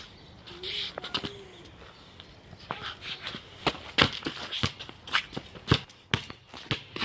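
A basketball bouncing on a hard court as it is dribbled, with players' footsteps and shoe scuffs: a string of sharp bounces about two to three a second, starting a few seconds in.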